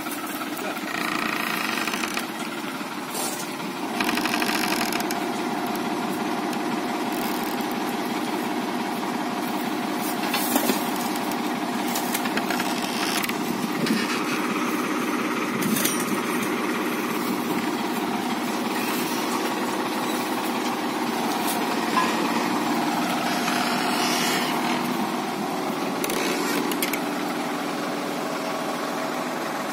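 Farm tractor's diesel engine idling steadily, with a few short knocks heard over it.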